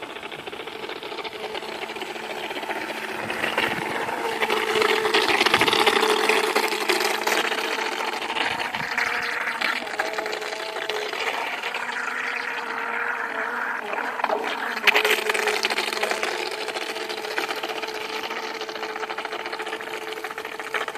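A model boat's small motor runs with a steady whine whose pitch shifts a little, over a rushing hiss of water that swells about four to seven seconds in and again around fifteen seconds in.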